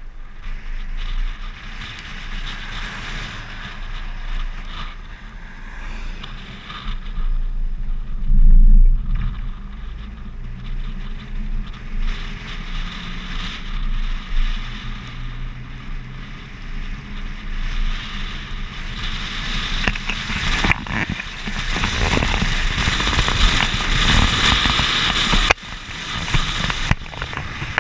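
Wind buffeting a GoPro mounted outside on a car's hood while the car drives at highway speed, with tyre and road rumble underneath. The rushing grows louder in the second half, then drops abruptly near the end as a hand takes hold of the camera.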